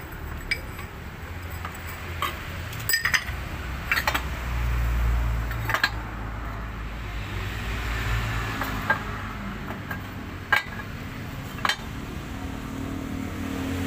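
Scattered metallic clinks and knocks as the aluminium housing of an AMR 500 supercharger is handled and set down on the steel bed of a hydraulic press.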